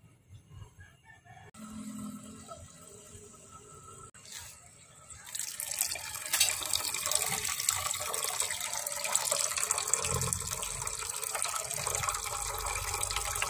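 Water poured in a stream from a plastic container into an aluminium pot of sauce, splashing steadily from about five seconds in.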